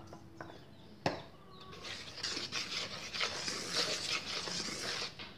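A spoon stirring dry flour in a plastic bowl: one knock about a second in, then a steady scratchy scraping and rustling of the powder from about two seconds on.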